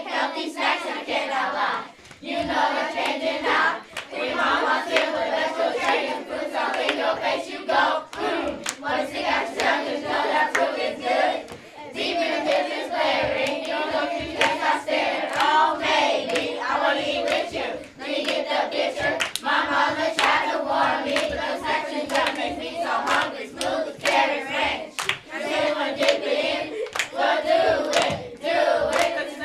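A group of children rapping and chanting in unison, with hand claps marking the beat.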